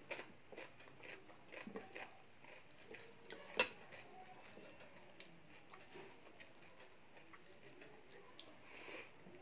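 Faint eating sounds: fingers mixing dal and rice on a steel plate, and chewing, with scattered small clicks and one sharp click about three and a half seconds in.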